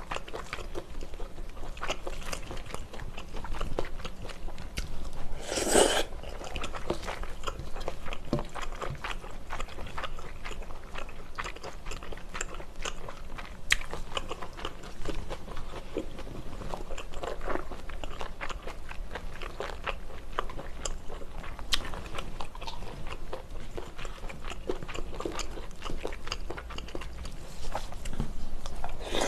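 Close-up mouth sounds of a person eating spicy stir-fried small octopus: steady chewing and wet smacking with many small clicks, and one louder, longer burst about six seconds in.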